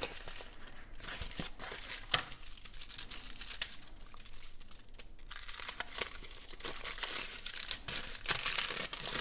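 Chocolate packaging being torn open and crinkled by hand: a run of irregular crackling and rustling.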